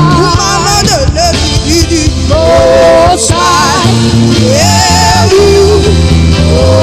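Live gospel worship music: a singer holding long vibrato notes over a band with bass and steady backing.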